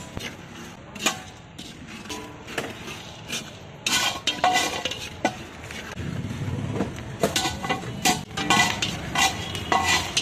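Iron ladle scraping and clinking against a large iron wok as corn kernels are stirred through sand for popcorn, with irregular sharp metal knocks that come thicker in the last few seconds.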